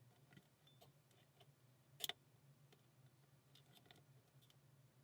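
Faint, scattered clicks of a lock pick and tension wrench working the pins inside an Alpha 1000 20 mm padlock, with one sharper click about two seconds in.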